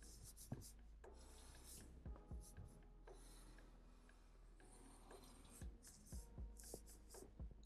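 Faint scratching of a felt-tip marker drawing on paper, in several short strokes with brief pauses between them.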